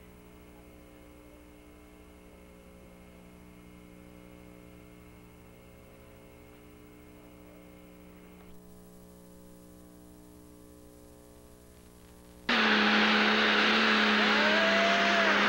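Faint steady hum for about twelve seconds, then abruptly a loud Pro Stock diesel pulling tractor running hard under load, with a steady engine note and a higher whine that bends up and down.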